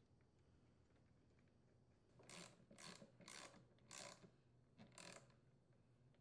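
Socket ratchet clicking faintly in five short runs, about two seconds in and lasting around three seconds, as the nuts on the hedge trimmer's blade-assembly bolts are tightened.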